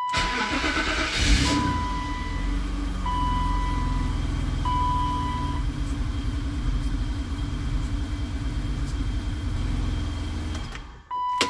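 BMW E32's engine starting, then idling for about ten seconds while the steering is turned lock to lock to circulate the hydraulic fluid, and switched off near the end. A steady-pitched dashboard warning beep sounds several times in the first six seconds and once more after the engine stops.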